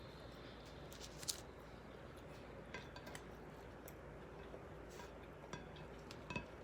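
Faint kitchen handling sounds: a few light clicks and clinks of a utensil against a pan, the loudest about a second in and again near the end, over a low steady background.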